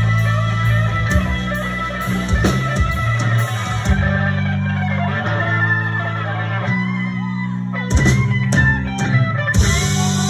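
Live band playing an instrumental passage: electric guitar lines over held bass notes, with drums. The cymbals drop out about four seconds in, and a few sharp drum hits come back near the end.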